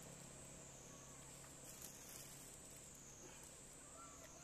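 Near silence: faint outdoor ambience with a steady high-pitched insect drone and a couple of faint short chirps, about a second in and again near the end.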